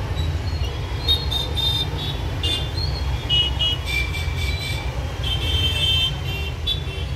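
Background traffic: a steady low rumble, with short high-pitched toots coming and going.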